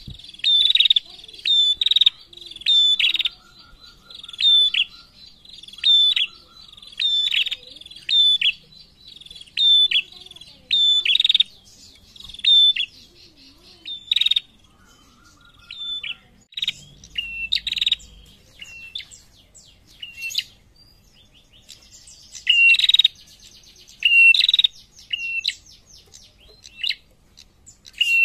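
Female prenjak calling loudly: sharp chip notes repeated about once a second, with short dry rattles between them and a spell of buzzy chattering about two-thirds of the way through.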